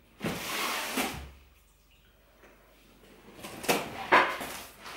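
Scissors slitting the packing tape on a cardboard box: a rasping scrape in the first second. Near the end come several sharp knocks and rustles as the cardboard flaps are handled, the loudest about four seconds in.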